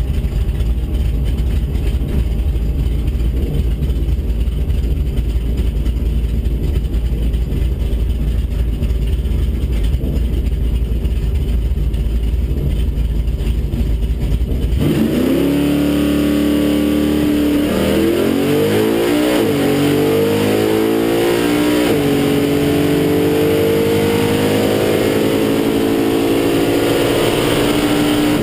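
Drag-race 383 small-block Chevy V8 in a 1965 Chevrolet Nova, heard from inside the cabin. It runs steadily at low revs on the start line, then about fifteen seconds in it launches into a full-throttle pass. The engine note climbs, drops sharply at two gear shifts of the Turbo 350 automatic, and climbs again toward the end.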